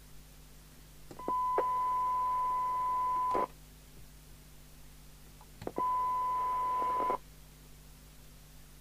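A steady 1 kHz test tone from a signal generator heard through a PNI HP55 CB radio's speaker as its squelch opens and closes at threshold: on for about two seconds starting just over a second in, then for about a second and a half later on. Each time it switches on and off abruptly with a little hiss under it, the first time ending in a short crackle as the squelch shuts.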